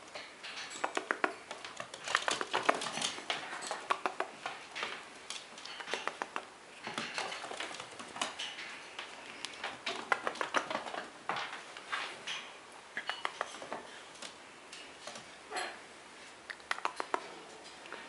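Baby squirrel's claws scratching and clicking on a wooden floor in quick, irregular flurries as it play-wrestles with a person's hand.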